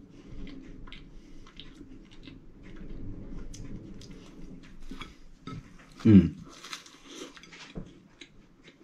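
Close-up chewing of a flaky-pastry vegan sausage roll, with many small crackles of the pastry as it is bitten and pulled apart. A brief hum of appreciation about six seconds in.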